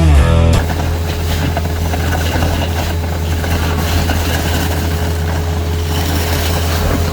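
Vacuum truck running steadily while vacuuming sand: a constant low drone with a steady hum over a rushing noise, with no change in pitch or level.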